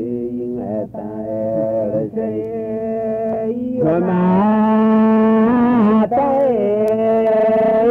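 Men singing a chant-like song in Woleaian, with long held notes that slide slowly up and down in pitch and get louder about four seconds in. It comes from an old low-speed tape field recording with a muffled, narrow sound.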